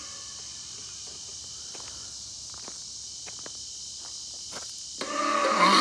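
Crickets chirping in a steady high haze, with a few faint clicks. About five seconds in, the Twitching Ghoul Halloween prop's loud recorded voice-and-effects track starts up.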